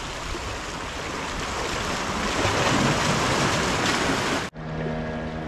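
Sea waves surging and washing against the boulders of a rock sea wall, a steady rushing that swells a little toward the middle. It cuts off suddenly near the end, giving way to a quieter steady low hum.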